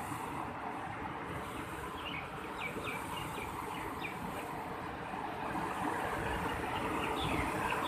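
River water rushing steadily, with small birds chirping short, repeated high notes over it from about two seconds in.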